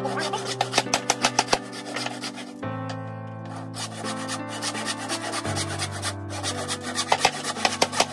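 Hand saw cutting through a 1x2 wooden board with back-and-forth strokes, over background music of held chords that change every few seconds.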